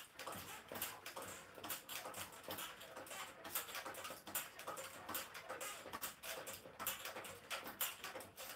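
Niceday mini stepper being pumped, its pedals and resistance cylinders creaking and clicking with each step, about two a second.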